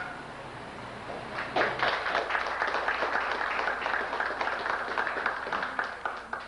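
A room full of people applauding. The clapping starts about a second and a half in and thins out near the end.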